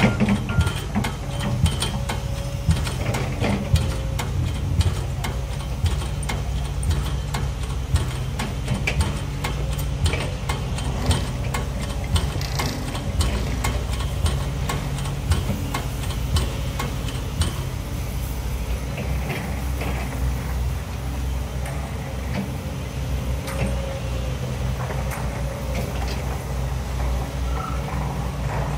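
Pile-driving hammer on a piling rig striking a pile about once a second over the steady drone of heavy diesel machinery, with lighter clanks in between. The strikes become weaker and sparser in the later part.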